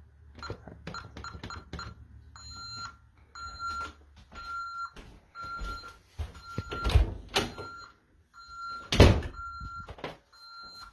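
Honeywell Vista 15P alarm keypad taking a quick string of key-press beeps as it is armed to away. It then beeps steadily about one and a half times a second as it counts down the exit delay. A few loud knocks come through, the loudest about nine seconds in.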